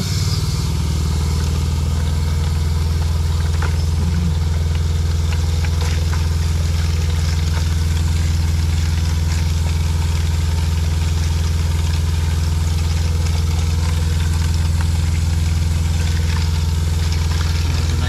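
A travel trailer's fresh-water pump running continuously with a steady low hum while an open bathroom faucet draws water, the stream splashing into the sink basin. The pump keeps running because the tap is open, flushing bleach sanitizing solution through the water lines.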